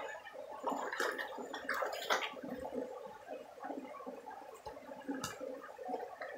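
Shallow creek water gurgling close to the microphone, with a few sharp clicks.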